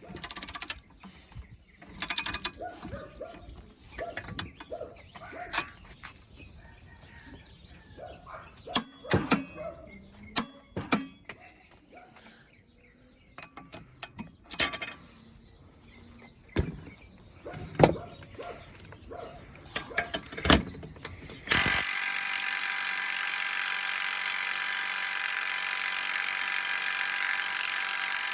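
Clicks and knocks of tool handling, then about three-quarters of the way in a cheap impact wrench starts abruptly and runs steadily, hammering at a bolt torqued to 200 foot-pounds that it only barely breaks loose.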